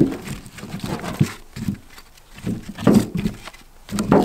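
Short branch logs being handled in a wheelbarrow: irregular dull wooden clunks and scrapes as they knock against each other and the tray, with a sharper knock about a second in.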